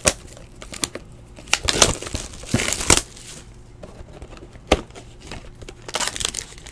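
Hands opening a Panini trading-card box and its wrapping: irregular crinkling and tearing of cardboard and plastic in short bursts, with a sharp snap at the start.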